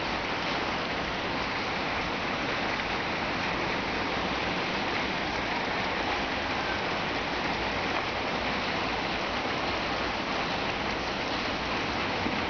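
A steady, even hiss of noise that holds at one level throughout, like rain or a fan.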